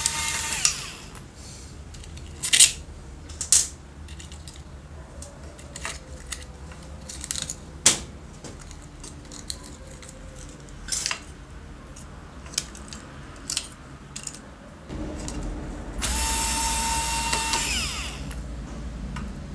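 Bosch Go cordless screwdriver whining as it backs out screws. It stops about a second in, and again there are scattered sharp clicks and knocks of metal and plastic parts being handled. The screwdriver runs again for about two seconds near the end and winds down.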